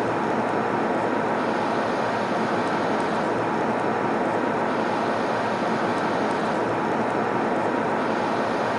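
Airliner cabin noise in flight: a steady, even rush of engine and airflow noise.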